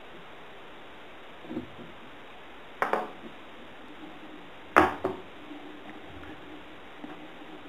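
Four sharp clacks and knocks of hand tools and cable being handled on a work surface, the loudest about five seconds in.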